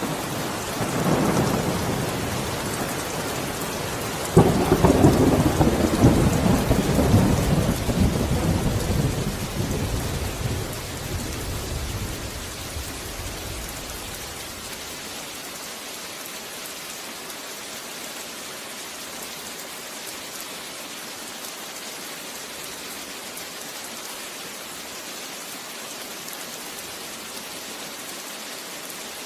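Steady rain with a roll of thunder: a rumble builds in the first second, a sharp thunderclap breaks about four seconds in, and the rumbling fades out over the next ten seconds, leaving only the rain.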